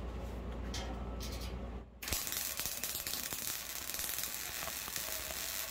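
Hobart Handler 125 wire-feed MIG welder laying a bead on steel flat bar. After a low hum, the arc strikes about two seconds in and crackles and sizzles steadily for about four seconds, then cuts off sharply as the trigger is released.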